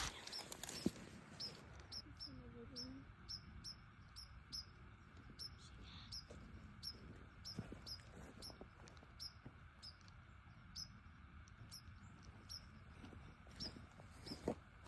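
Faint high bird chirps repeating steadily, about two to three times a second, with a couple of faint knocks.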